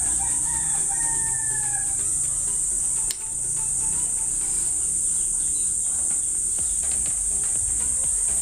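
Steady high-pitched buzzing of insects, which dips briefly about three seconds in, over faint background sounds.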